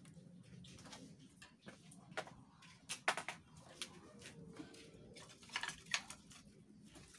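Light clicks and knocks of a person stepping about in sandals and handling things by the stove, in two small clusters about three seconds in and near six seconds.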